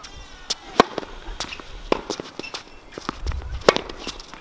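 Tennis ball struck with a racket on a hard court: a sharp pop from the serve about a second in, then lighter knocks of rally shots and ball bounces, with another hard hit near the end.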